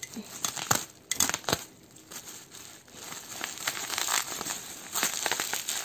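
Plastic bubble wrap being cut with a utility knife and pulled apart by hand: irregular crinkling and crackling with sharp clicks, a few louder clicks in the first two seconds and denser crackling in the second half.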